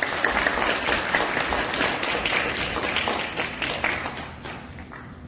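Concert audience applauding, the clapping thinning out and dying away near the end.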